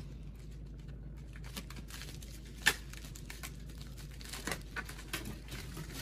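Plastic mailer bag crinkling and being picked at by hands, with a sharp click about two and a half seconds in, over a low steady hum.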